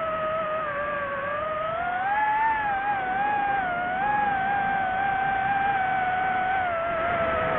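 Drone motors and propellers whining as one pitched hum that drifts up and down with the throttle, rising about two seconds in and easing lower near the end.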